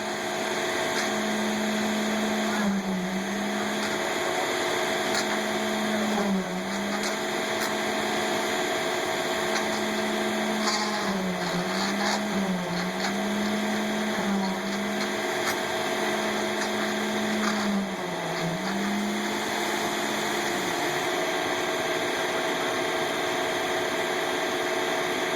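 Heavy truck engine at a concrete pour, running at steady high revs with a constant drone. Its pitch dips briefly several times, then drops away near the end.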